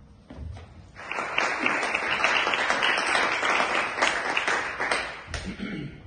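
Audience applauding, starting about a second in and dying away near the end.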